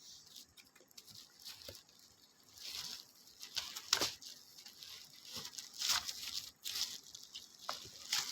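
Packaging being handled while the lock's parts are unpacked: irregular rustling and crinkling, with a sharp click or knock about four seconds in.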